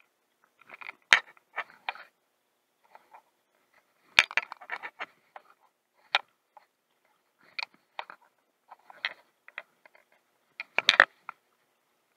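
Irregular clicks and rattles of handling noise from the baitcasting reel and rod while a trout is played, in scattered clusters. The loudest are about a second in, about four seconds in, and a longer rattle near the end.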